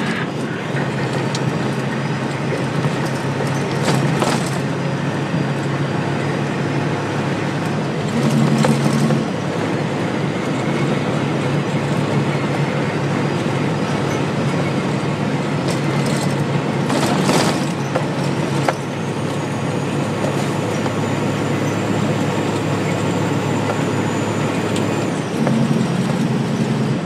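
Tractor-trailer's diesel engine and tyre and road noise heard inside the cab while driving at steady speed: a constant drone, with a few brief knocks or rattles about four seconds in and again past the middle.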